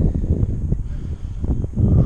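Wind buffeting the camera's microphone: an uneven low rumble that surges at the start and again near the end.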